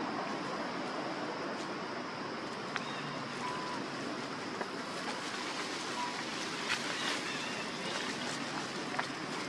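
Steady outdoor background hiss, with a few faint short chirps and soft clicks.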